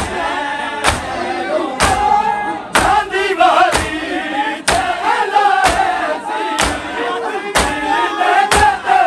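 A group of mourners chanting a noha together, over loud rhythmic matam (chest-beating) that lands as a sharp thump about once a second.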